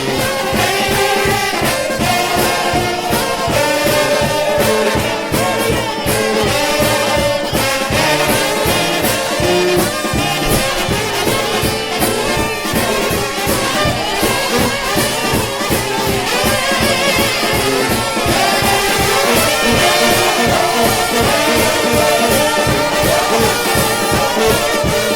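A trombone shout band playing up-tempo brass music: several massed brass lines held over a fast, steady beat.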